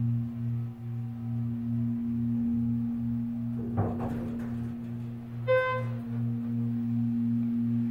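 Schindler elevator's drive hums steadily as the car travels up, with a lower drone pulsing about three times a second. A short burst of noise comes about four seconds in. A single electronic ding about five and a half seconds in signals the car's arrival at the floor.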